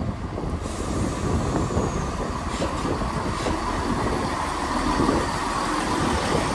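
West Midlands Railway Class 170 Turbostar diesel multiple unit running slowly past along the platform as it pulls in, with a steady rumble of underfloor engines and wheels on the rails.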